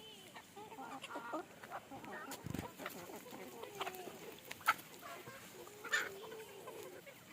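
Chickens clucking, several birds making short calls one after another, with two sharper, louder sounds a little after the middle and about six seconds in.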